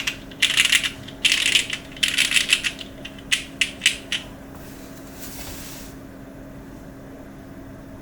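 Plateless NEO80 CU mechanical keyboard with vintage MX Black switches and GMK keycaps, typed on in quick bursts of keystrokes. A few single keystrokes come about four seconds in, then the typing stops.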